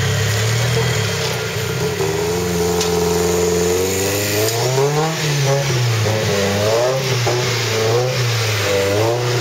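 Trial 4x4 prototype buggy's engine working under load as it climbs a steep, rooty forest slope: held at a steady note for about two seconds, then revved up and down several times.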